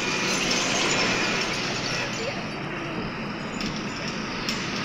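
Steady road and traffic noise from a moving vehicle, an even rush of tyres, engine and air, heard from inside the cabin.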